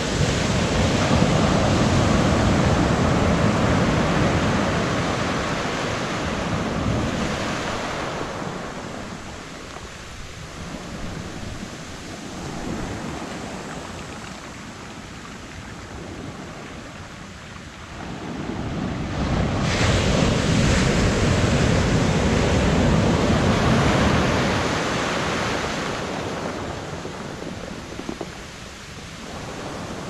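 Ocean surf breaking and washing up a sandy shore in two loud surges, one at the start and one about two-thirds of the way in, each slowly fading as the water draws back.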